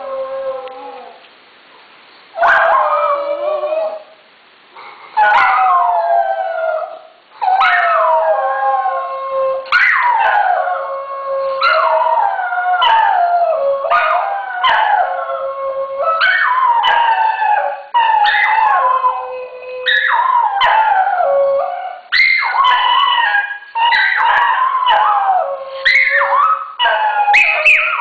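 Two dogs howling together, one lower-pitched and one higher. The howls each start high and slide down; after a few short, spaced calls they come about every two seconds, then crowd closer and overlap near the end.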